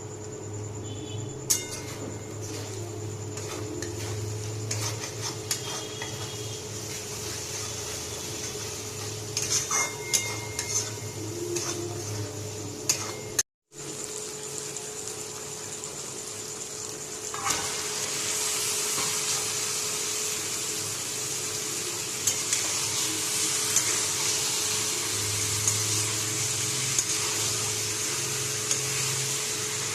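Metal spoon clinking and scraping against a cooking pot, with sharp taps. After a cut, a steady frying sizzle starts up in the pan, with the spoon tapping now and then.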